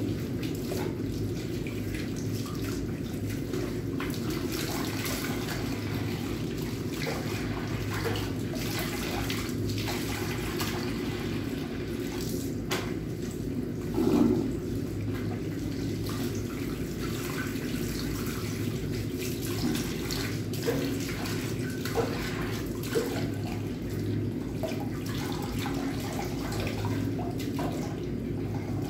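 Tap water running steadily into a sink as a cat is washed under it, with splashing and small knocks from handling the wet cat. A brief louder sound comes about halfway through.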